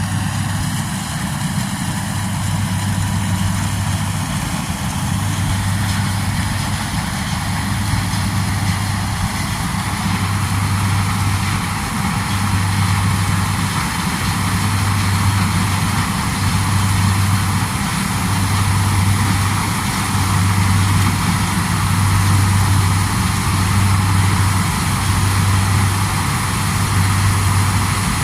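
Combine harvester's heavy engine running steadily under a constant machinery hum. A low drone swells and fades about every one to two seconds.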